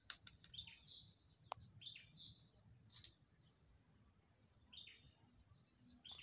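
Faint bird chirps: short calls that sweep down in pitch, repeated several times, with a single sharp click about a second and a half in.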